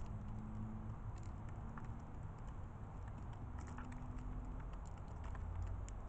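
Light, scattered clicks and ticks of birds pecking seed from a metal feeder tray, over a low steady rumble.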